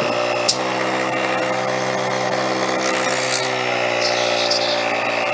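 Small electric air pump running steadily at its maximum setting, a constant motor hum, pumping air into a golf grip so it slides onto the shaft. A brief click about half a second in.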